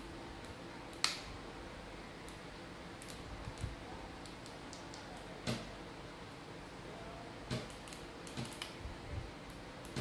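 Scattered clicks and light knocks of a mini Bluetooth keyboard's plastic case and circuit board being handled, the sharpest about a second in and a small cluster near the end, over a steady low hum.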